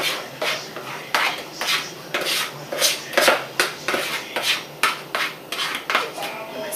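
Spatula scraping batter out of a plastic mixing bowl, a quick series of short scraping strokes, about two a second.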